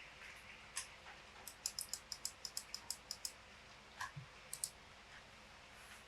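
Faint, light clicks from a Tofu 60 acrylic keyboard with Gateron Milky Yellow linear switches and PBT keycaps. There are a few scattered taps, a quick run of about a dozen at roughly seven a second, and a few more near the end.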